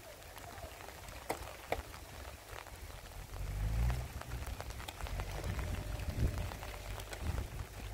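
Steady rain falling, with scattered sharp ticks and a low rumble that swells about three and a half seconds in.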